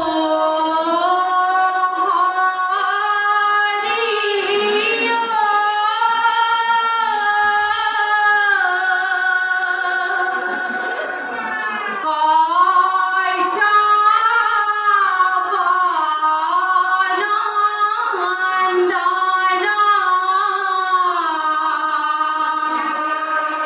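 A group of women singing a dihanam, an Assamese devotional chant, together in one melodic line with long held notes that slide slowly between pitches.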